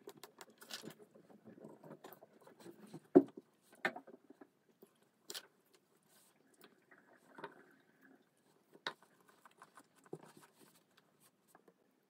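Eating at a table: a metal fork clicking and scraping on a ceramic plate, with quiet chewing, in scattered small taps. The sharpest clink comes about three seconds in.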